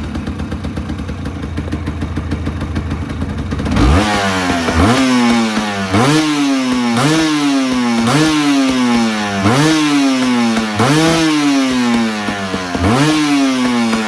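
Honda CRM250R's two-stroke single-cylinder engine, breathing through a PRO SKILL OB-M1 aluminium silencer, idling steadily. About four seconds in it starts a series of quick throttle blips, roughly one a second, each rising sharply in pitch and falling back to idle.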